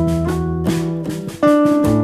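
Instrumental background music, with held notes that change every half-second or so.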